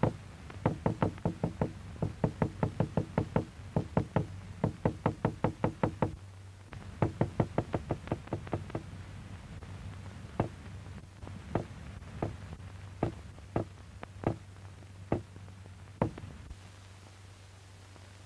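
A hammer knocking on a hard surface, first in quick runs of about four blows a second, then slowing to single blows about a second apart that stop shortly before the end.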